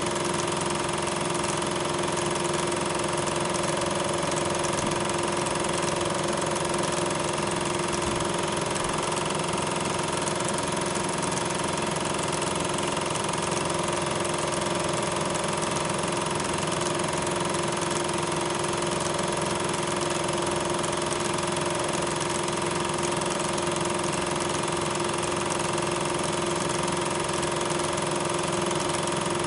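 Steady, unchanging mechanical whirr with a steady hum: the running noise of the film-transfer equipment, not the trains on screen, since regular 8mm film carries no sound.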